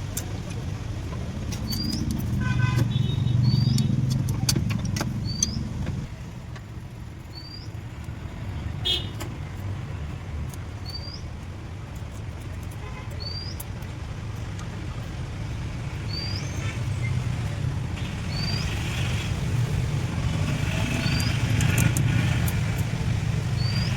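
Motor vehicle engine running, swelling louder twice, with a short high chirp repeating every second or two and scattered light clicks.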